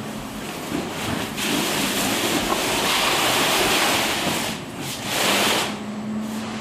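A large plastic container liner rustling and scraping as it is unfolded and dragged along a shipping container's floor. The noise swells about a second in, breaks off briefly, then comes back for a moment near the end.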